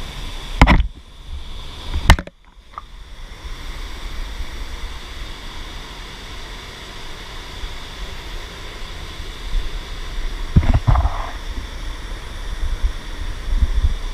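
Steady rushing water of a river running over rock. Two loud sudden hits come in the first two seconds, and a shorter burst about eleven seconds in.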